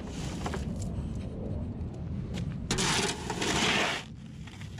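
Wheelbarrow loaded with fir branches being pushed over wet ground, with a steady low rolling rumble and a few light knocks. About three seconds in there is a loud scraping rush that lasts about a second and then stops abruptly.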